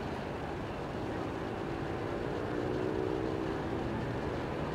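Steady distant rumble with a faint engine drone that swells in the middle and dips slightly in pitch.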